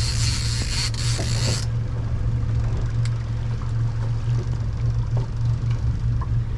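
Boat engine running with a steady low drone, and a brief hiss over the first second and a half.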